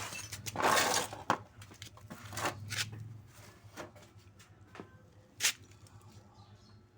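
Scattered clicks, knocks and clanks of hands and tools working on a motorcycle engine, with a noisy rustle about a second in and one sharp click near the end.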